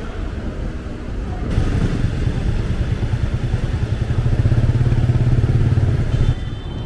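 Street traffic with a motor vehicle's engine running close by. The low engine rumble builds to its loudest past the middle, then cuts off suddenly near the end.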